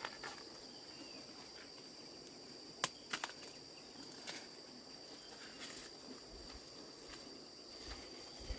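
Insects chirring steadily at a high pitch in a field, with a few sharp snaps or cracks about three seconds in.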